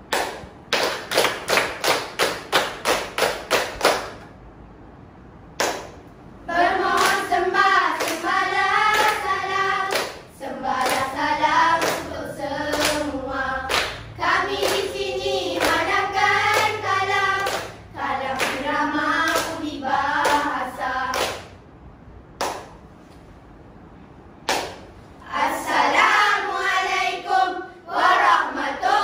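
A children's choral-speaking group claps together in a steady rhythm, about three claps a second for roughly four seconds. Then the children chant and sing lines in unison, with a few single claps in the pauses between lines.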